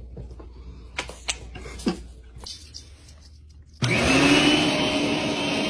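A motor-driven appliance starts suddenly about two-thirds of the way in, whirring loudly and steadily after a quick rise in pitch as it spins up, then cuts off abruptly. Before it there are only a few faint knocks.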